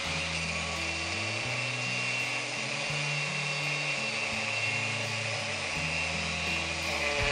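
A DeWalt DWE4257 125 mm angle grinder running steadily, its abrasive cut-off disc cutting through steel rebar, heard under background music.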